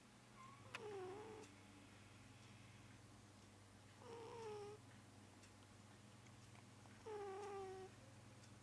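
Persian cat snoring in her sleep: three faint, squeaky pitched snores about three seconds apart, each dipping slightly in pitch.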